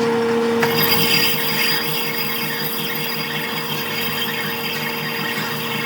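Workshop power tool working on metal: a steady machine hum under a rough, even hiss that comes in abruptly about half a second in.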